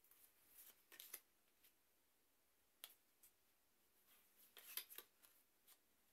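Near silence: faint room tone with a few short, soft clicks and rustles, about one second in, just before three seconds and a small cluster near five seconds.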